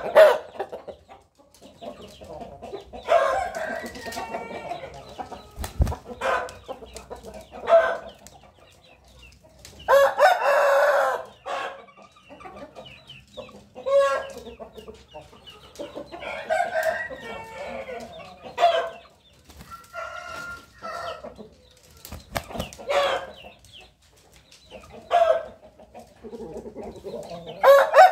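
Game-fowl roosters crowing again and again, each crow lasting a second or two, with chickens clucking between the crows.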